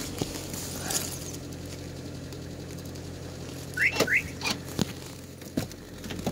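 Lada Granta's engine idling steadily just after a remote-start cold start at about −28 °C. About four seconds in come two short rising squeaks, followed by a few sharp clicks.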